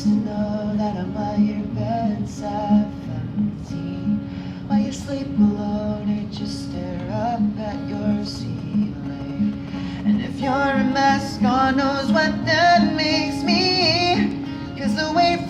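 Acoustic guitar strummed in a steady rhythm under a sung vocal line; the singing becomes stronger about ten seconds in.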